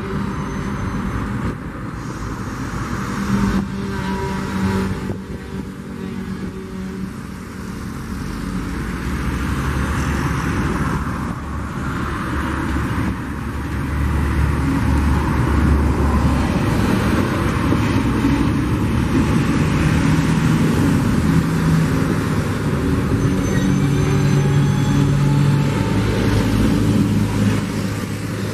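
Loaded mineral hopper wagons rolling slowly past on the rails: a steady rumble of wheels on track with a few knocks, louder from about halfway through.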